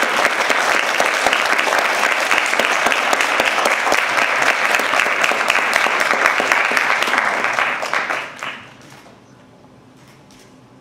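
Audience applauding: dense clapping that dies away about eight seconds in, leaving a quiet room with a few faint clicks.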